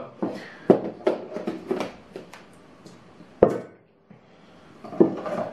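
Objects being handled and set down on a table: a run of light clicks and knocks, then one sharper knock about three and a half seconds in, like a small spice jar being put down.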